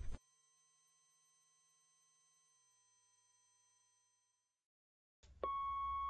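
A loud, very high-pitched steady electronic tone sets in right after a bang. It holds level and fades out about four and a half seconds in. After a short silence, a faint lower steady tone starts near the end.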